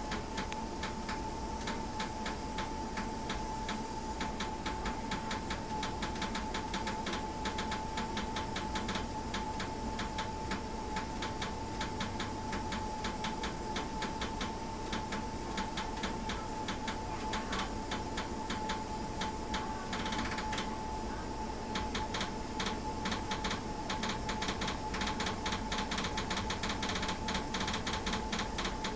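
Rapid, even mechanical ticking from a car after a new system was fitted, a noise the owner takes as a sign that something isn't right; a steady high whine runs underneath. The ticking grows louder and quicker in the last few seconds.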